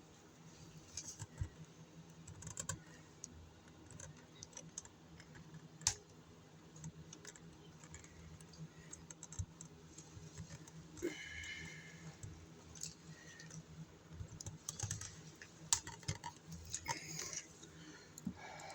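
Irregular small clicks and taps of hand tools and electrical wires being handled while working wires together in an outlet box, with two sharper clicks about six and sixteen seconds in.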